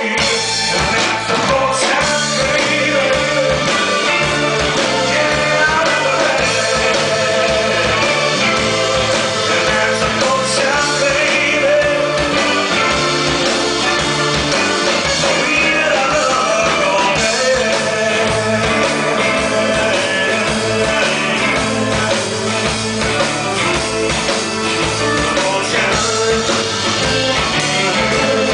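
A rock band playing with singing, with a steady beat.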